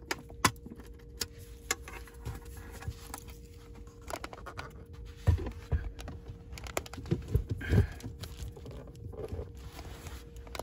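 A key turning and clicking in the lock of a small metal pistol lock box, with keys jangling. Then the box is handled and pushed down under a car seat, giving several knocks and thumps against the seat and floor.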